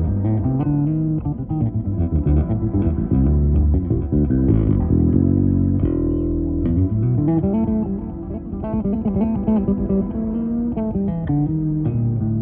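Fender Japan Boxer Series Precision bass played fingerstyle: a busy electric bass line of quick plucked notes, with a brief slide in pitch midway.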